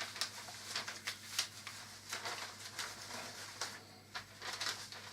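Sheet of paper rustling and crinkling in a run of soft, irregular crackles as it is slid gently underneath a completed jigsaw puzzle.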